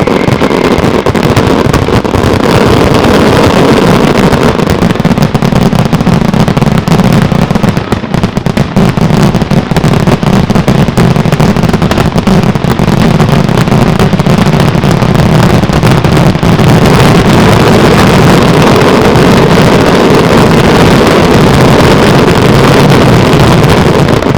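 Aerial fireworks finale barrage: shells bursting so fast that the reports merge into one continuous, very loud rumble with a dense crackle on top.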